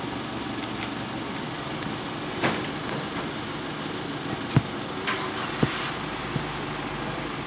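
A few short sharp clicks and knocks from a long-barrelled 9 mm revolver being handled and readied, the loudest about four and a half seconds in, over a steady low background rumble.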